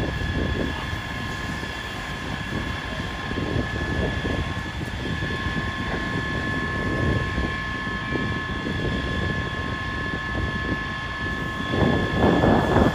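Steady rumble of running heavy-vehicle engines with a constant high whine above it, and wind buffeting the microphone; it grows louder near the end.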